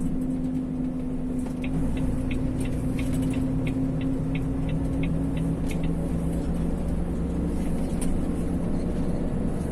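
Lorry engine running steadily, heard from inside the cab. A run of sharp regular ticks, about three a second, sounds for a few seconds in the middle.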